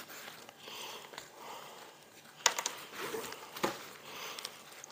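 Faint rustling of a backpack and gear being handled and pulled out, with a few sharp clicks in the second half.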